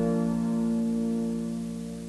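Background music: a sustained chord slowly dying away.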